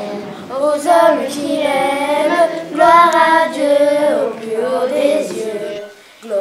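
High voices, most like children's, singing a slow melody with long held notes.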